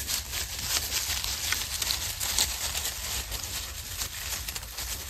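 Dogs' paws crunching and rustling through dry fallen leaves as they run about, a quick, irregular patter of crunches that sounds like an army marching in.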